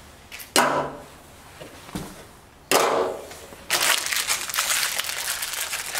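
Two knocks as the plastic adjustable feet are set down on the cabinet's sheet-steel base, then about four seconds in a plastic hardware bag crinkling as parts are rummaged out of it.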